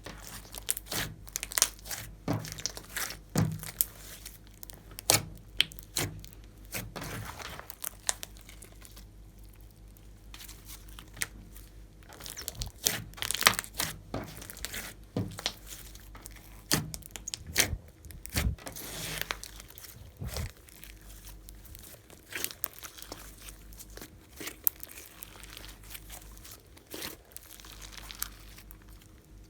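Slime being kneaded and stretched by hand, giving irregular crackling and sharp popping clicks as air pockets burst, with a busier stretch in the middle.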